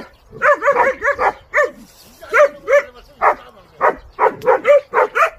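A three-month-old Danseong-gae puppy, a Korean boar-hunting dog, barking at a wild boar: a rapid string of high yipping barks, some coming in quick runs of three or four.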